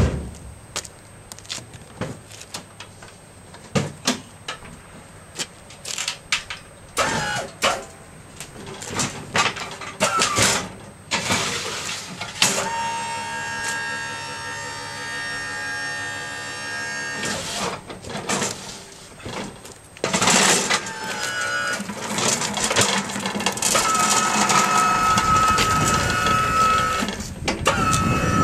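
Clicks and knocks of the van's rear doors and the lift trolley being handled, then the electric motor of a battery-powered Innolift lift trolley whining steadily for about five seconds around the middle. In the last third the motor runs again, louder, with a steady whine, as the trolley moves off.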